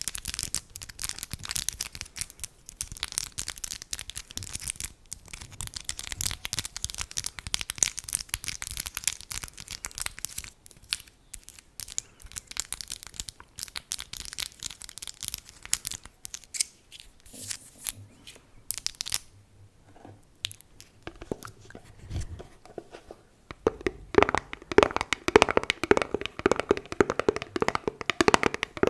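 Fingers tapping and scratching on objects for ASMR: rapid, crisp, close ticking at first, sparser through the middle, then a denser, fuller run of rapid taps in the last few seconds.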